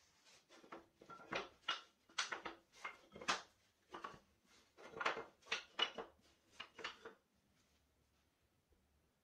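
A quick, irregular run of short scrapes and knocks, about fifteen in seven seconds, from wood and tools being handled on a workbench, then it stops.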